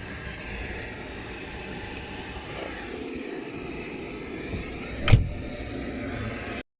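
Steady running noise of a car on the road, with one sharp, loud thump about five seconds in; the sound cuts off abruptly near the end.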